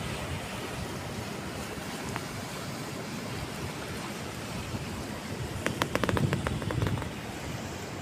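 Steady wash of surf and wind at the shore. About six seconds in, a quick run of sharp clicks and knocks lasts for a second or so.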